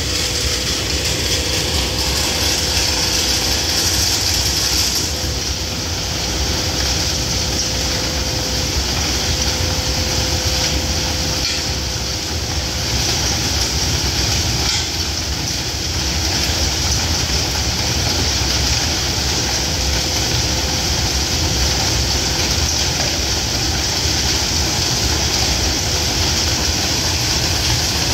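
Ballast-sweeping track machine at work: its engine runs while the sweeping unit under the front clears leftover ballast stones off the rails, making a steady, loud mechanical din.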